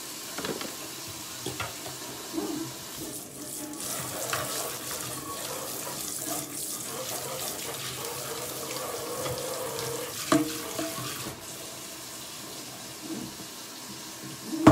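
Kitchen faucet running steadily into a sink as dishes are washed up, with scattered knocks and clatter of cookware, loudest near the end.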